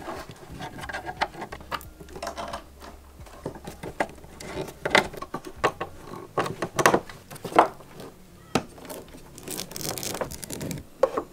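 Irregular clicks, knocks and rustling of thick braided power cables being handled and connected to a plastic distribution box, with a screwdriver working its terminals.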